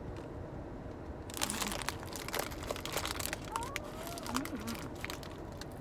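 Crinkling and crackling of a bag of roasted chinquapin (shii) nuts being opened and handled, starting about a second in.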